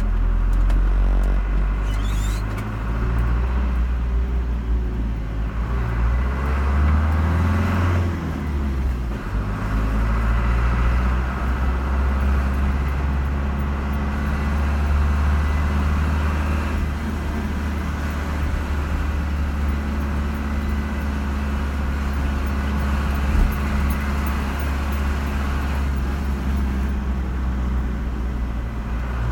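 Car driving on a road: a steady low engine and tyre rumble. The engine note shifts about seven to nine seconds in, and there is a single short knock near the end.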